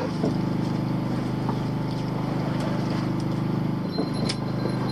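Fishing boat's engine running steadily at an even speed, a low drone, with a single sharp tick about four seconds in.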